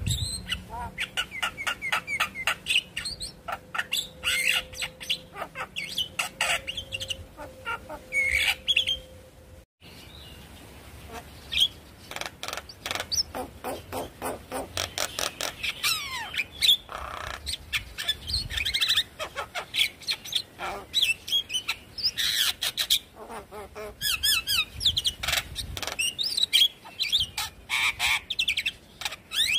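Javan myna singing: a fast chattering run of short repeated harsh notes mixed with whistles, broken by a brief gap about ten seconds in.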